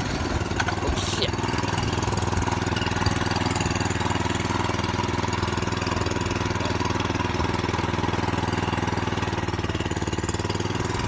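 Go-kart's small horizontal-shaft pull-start engine, freshly started, idling steadily at an even pitch.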